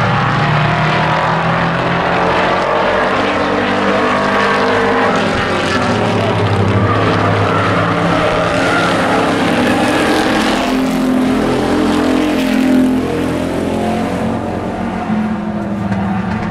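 Engines of a pack of hobby-class pickup race trucks running around the oval, several engine notes rising and falling over one another. They swell louder around the middle as the pack passes.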